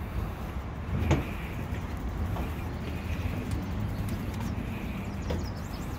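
Bicycle rolling along a wooden plank boardwalk: a steady low rumble from the tyres on the boards, with a sharp knock about a second in and a few fainter clicks.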